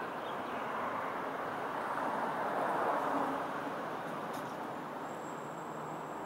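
Steady road-traffic noise that swells as a vehicle passes about halfway through, then eases off.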